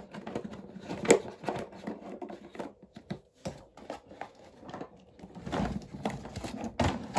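Plastic toy packaging being handled: scattered clicks and rustling as retaining pins and clips are worked out of the box insert, with a sharper click about a second in and another at the end.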